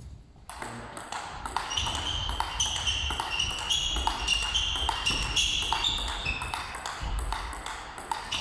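Table tennis rally of backhand push-blocks: the plastic ball clicks in a quick, even rhythm off the table and the penhold short-pips bat, each hit with a bright ping. It starts about half a second in.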